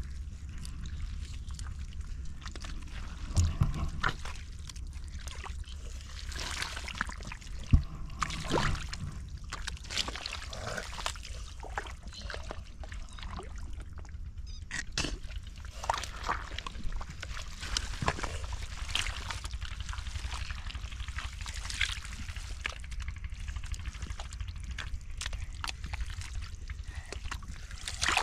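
Shallow water sloshing, splashing and trickling in irregular strokes, as when water is scooped and strained by hand. There is a steady low rumble underneath and two louder knocks, about three and a half and nearly eight seconds in.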